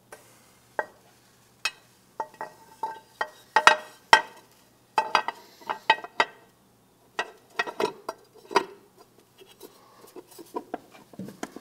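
Metal clutch cover of a Honda Goldwing GL1800 engine being fitted by hand over a new gasket onto the crankcase: a series of light, irregular metallic clinks and knocks as cover, gasket and case touch.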